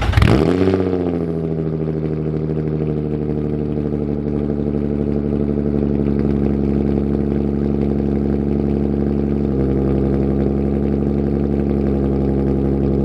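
Nissan Z sports car engine cold-starting: the starter cranks, the engine catches with a quick rev flare, then settles into a steady, loud fast idle. The idle steps down slightly about nine and a half seconds in.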